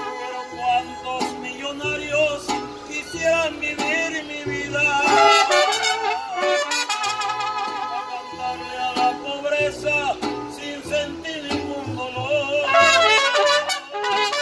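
Mariachi band playing live: a trumpet carries the melody with vibrato over strummed vihuela and the plucked bass notes of a guitarrón.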